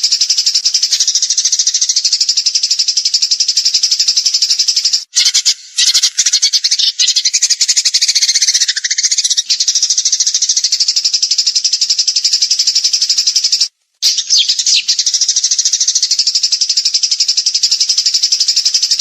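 Small songbird singing a very fast, continuous high-pitched trill in long rapid bursts, the 'tembakan' style of song used to master cage birds. It breaks off briefly twice, about five seconds in and again near fourteen seconds, as if spliced.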